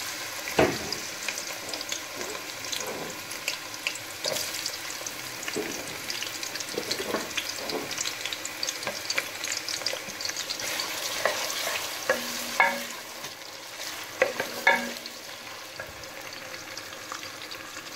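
Sliced onions sizzling in hot oil in a metal pot, just added and being stirred with a wooden spoon that scrapes and knocks against the pot now and then.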